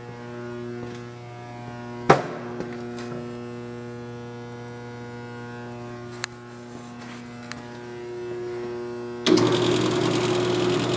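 Steady electrical hum with a sharp click about two seconds in and another near six seconds. Near the end, the Ammco 4000 brake lathe's motor switches on suddenly and runs, much louder than the hum.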